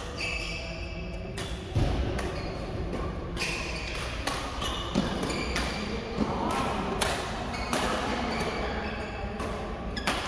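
Badminton rackets hitting shuttlecocks in rallies on several courts: sharp irregular hits, often more than one a second, with short squeaks from shoes on the court floor.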